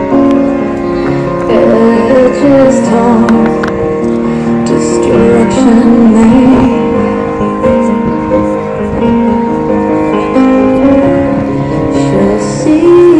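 Music: instruments holding long notes under a wavering melody line.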